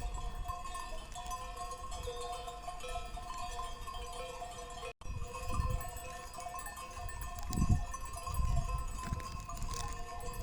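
Many cencerros (livestock bells) clanking and ringing together without a break, as from grazing animals on the move. Low rumbles come and go in the second half, and the sound cuts out for an instant about halfway through.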